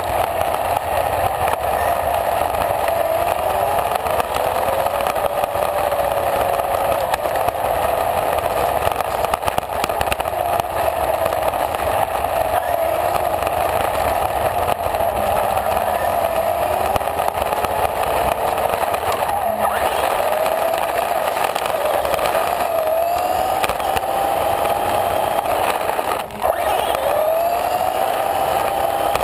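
RC car's motor whining, its pitch rising and falling again and again with the throttle, over the steady rumble and hiss of its tyres on gravelly asphalt, picked up by a camera riding on the car. The sound drops briefly near the end.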